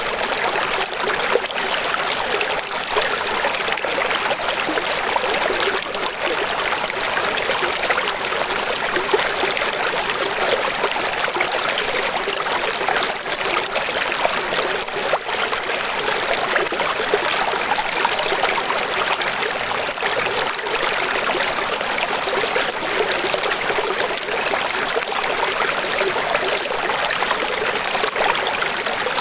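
Running water splashing steadily, a thin hiss with almost no low rumble.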